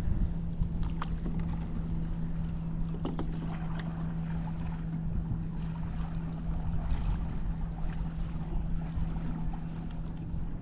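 Wind rumbling on the microphone over a steady low hum, with a few light splashes and knocks from kayak paddles in the water.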